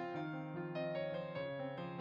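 Background piano music: a melody of notes struck one after another over sustained lower notes.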